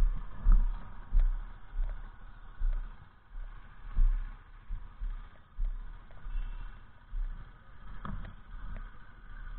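Uneven low thumps and rumble on a small camera's microphone as it is carried along by someone walking, over faint vehicle noise.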